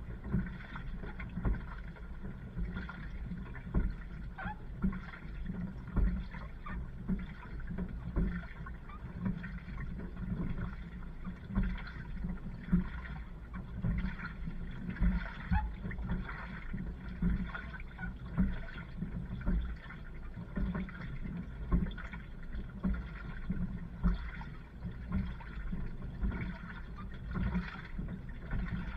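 Water sloshing and laundry tumbling in an LG washing machine drum, recorded from inside the drum, with a steady low rumble and irregular knocks. The sound cuts off suddenly at the end.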